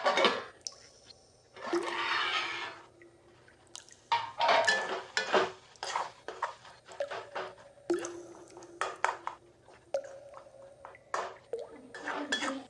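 A metal spatula scraping and knocking against a metal kadai as a tomato-and-spice masala is stirred and mashed, in quick irregular strokes. About two seconds in there is a brief hiss of liquid poured into the hot pan.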